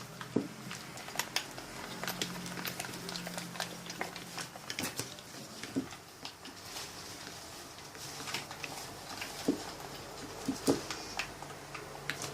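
Glue-based slime mixture being stirred in a bowl: irregular clicks and taps of the stirrer against the bowl, with soft wet squishing.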